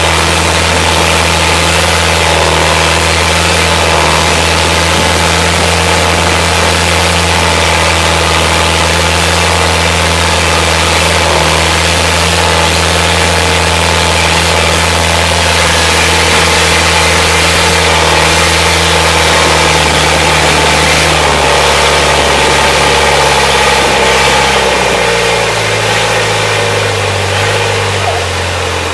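Long-tail boat engine running hard and steadily at speed, with the hiss of spray and wind over it. About three quarters of the way through, the engine note falls in pitch and gets a little quieter as the boat throttles back.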